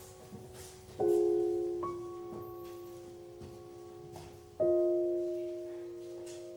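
Slow, soft piano music: chords struck about a second in, again shortly after, and once more past the halfway point, each left to ring and fade.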